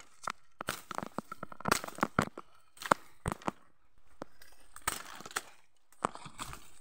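Footsteps pushing through thick, dry undergrowth: irregular crackling and snapping of dry leaves, twigs and grass, with brief pauses.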